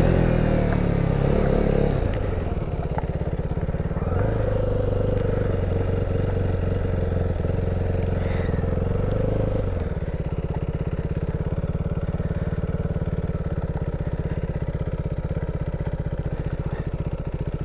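KTM 390 Duke's single-cylinder engine slowing at the start, then running steadily at low speed. About ten seconds in it drops to an idle with an even, rapid pulse.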